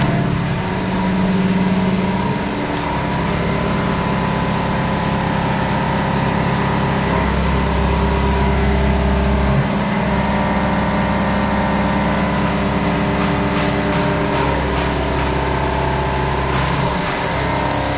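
CNC vertical machining centre running a cut: steady mechanical hum with several held tones from the spindle and drives, and the low hum shifts a few times as the machine changes speed. A hiss, typical of coolant spraying onto the tool, joins near the end.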